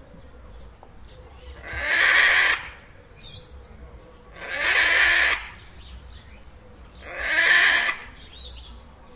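Macaw giving three loud squawks, each about a second long, evenly spaced a couple of seconds apart.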